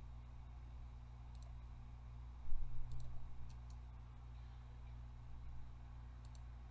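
Computer mouse buttons clicking a handful of times, several in quick pairs, over a steady low hum. A soft low thud comes about two and a half seconds in.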